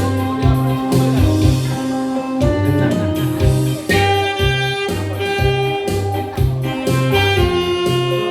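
Saxophone playing a slow melody of long held notes over an accompaniment of guitar and a bass line with a steady beat.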